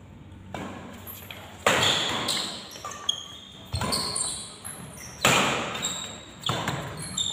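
Badminton doubles rally: sharp racket hits on the shuttlecock every second or two, echoing in a large hall, with sports shoes squeaking on the court between the hits.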